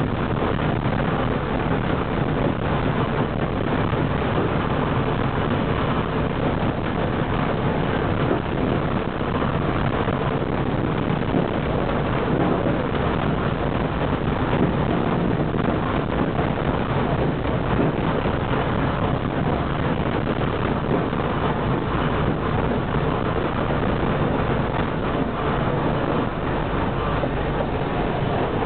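Electric tram running along street track, heard from inside the car: a steady, dense rumble of wheels on rails and body rattle.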